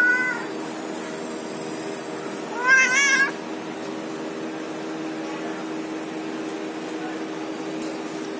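A caged cat meowing: the tail of one meow right at the start, then a louder meow that rises and falls in pitch about three seconds in. A steady low hum runs underneath.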